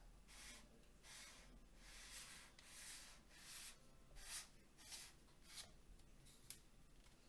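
Faint rubbing and scraping of hands twisting a 3D-printed plastic tube on a camera lens, in repeated short strokes about one or two a second, with a couple of small sharp clicks near the end.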